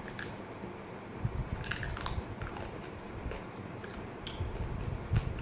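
A person chewing a mouthful of fried rice and chicken close to the microphone, with wet mouth sounds and a few short sharp clicks.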